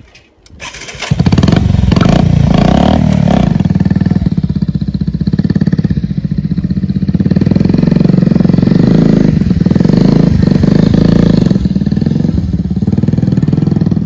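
Motorcycle engine starting about a second in, then running loud and steady as the bike rides off.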